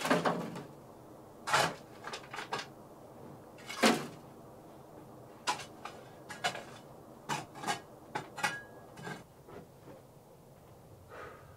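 Irregular knocks, clatter and scrapes of hard objects being handled: a longer scrape at the start, then about a dozen sharp knocks spaced unevenly, with a brief squeak later on.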